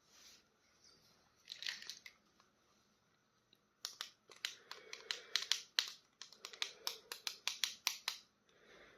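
Plastic toy packaging being opened by hand: a brief rustle, then about four seconds of quick, sharp clicks and snips.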